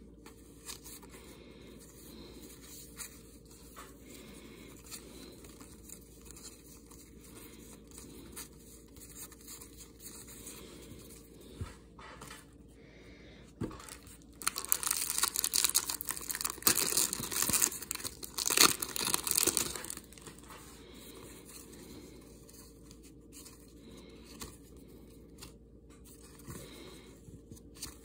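A foil trading-card pack wrapper being torn open and crinkled in a loud burst of about five seconds midway through, with quiet handling of cards before and after.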